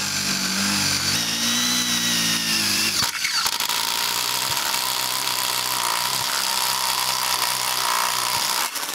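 Cordless impact driver running a tin-coated twist-type step drill bit through a thick-walled square steel tube, a steady power-tool drilling noise whose tone changes about three seconds in. The sound is sped up to double speed.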